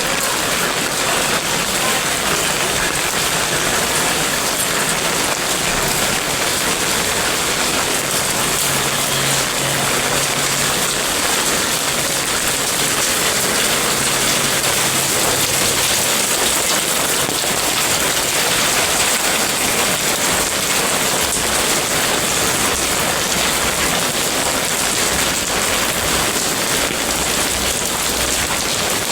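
Rain falling steadily: a constant, even hiss of rain on surfaces that does not let up.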